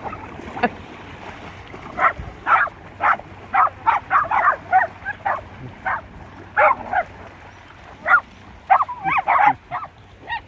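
Dog barking repeatedly in short, sharp barks, about two a second, starting about two seconds in.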